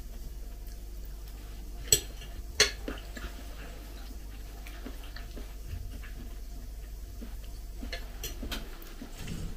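A table knife clinking against a ceramic plate: two sharp clinks about two seconds in, then lighter taps near the end, over a steady low hum.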